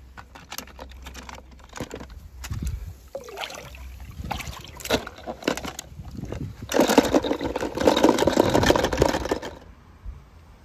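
Plastic toy cars clicking and knocking against each other, then about seven seconds in, some three seconds of loud liquid sloshing.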